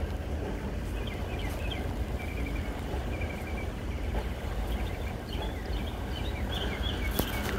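Small birds chirping in short repeated notes over a steady low rumble, with a single sharp click near the end.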